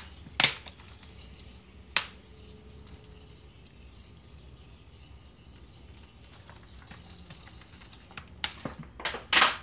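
Vinegar being poured from a bottle over seasoned pork in a bowl: mostly quiet, with a few sharp clicks and taps from the bottle, and a louder rattling knock just before the end.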